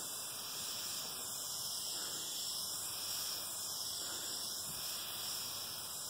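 Aerosol spray can of semi-gloss ceramic paint hissing steadily as it sprays.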